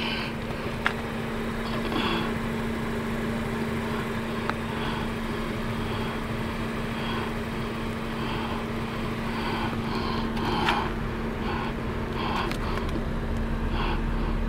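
A steady mechanical hum holding one constant low tone over a low rumble, with a few faint clicks and scuffs.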